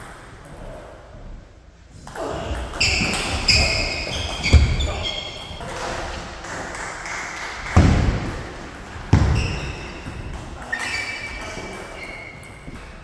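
Table tennis play in a large hall: the ball clicking and bouncing off the table and bats, with a few heavier thuds of players' feet and some faint voices.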